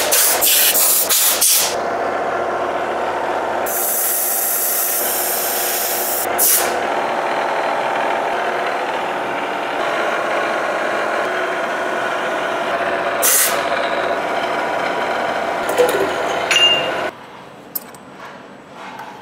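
Milling machine spindle running at about 2000 RPM, with an end mill cutting a slot in an aluminium plate: a steady whine with cutting noise, and a loud hiss for about two seconds around four seconds in. The machining stops suddenly near the end, leaving a few small clicks as the collet is handled.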